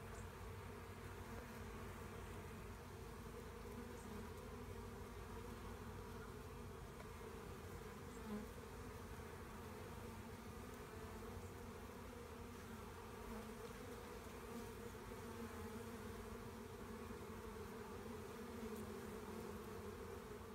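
A swarm of honeybees buzzing in a steady, even hum.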